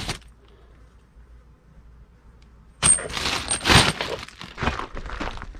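Metal clanking and clattering, several sharp knocks starting about three seconds in after a quiet stretch, the first with a brief high metallic ring.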